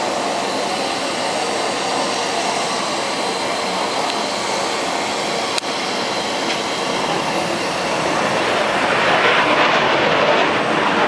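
Boeing 737-200's Pratt & Whitney JT8D jet engines running: a steady loud rush of noise that swells louder about nine seconds in.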